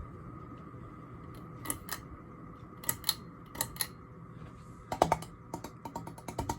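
Ceiling fan pull-chain switch pulled three times, each pull giving a pair of sharp clicks, stepping the 2006 Hampton Bay Quick Connect down from high to off for its spin-down, over a faint steady hum. From about five seconds in, a quick run of regular ticking clicks begins.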